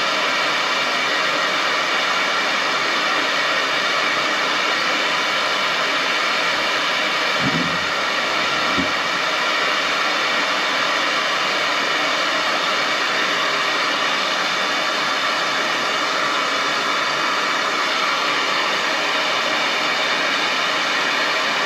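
Propane torch burning with a steady hiss. A couple of faint knocks come about eight and nine seconds in.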